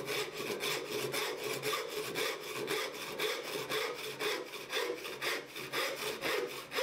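Hand saw cutting into the end grain of a wooden board in short, even strokes, about four a second: the start of a dovetail pin cut, made just beside the marked line on the waste side.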